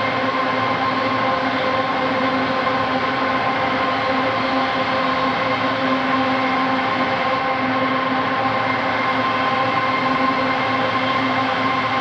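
Drone/noise ambient texture from an Arturia MicroFreak and Novation Circuit Tracks synthesizer setup: a steady wash of noise with a held low tone and its overtones ringing through it, unchanging in level.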